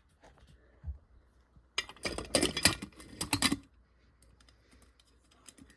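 Rapid clinking and rattling of small hard glass and metal parts being handled, a dense run of sharp clinks lasting under two seconds from about two seconds in, after a single small knock.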